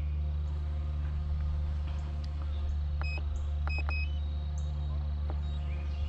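Steady low hum of a multirotor drone's propellers in flight. About three to four seconds in come a few short high beeps from the drone's remote controller. Faint bird chirps sound in the background.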